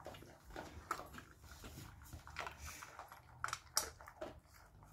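A dog eating kibble mixed with ground beef from a stainless steel bowl: faint, irregular chewing and clicks of food and teeth against the bowl, with a few sharper clicks a little past the middle.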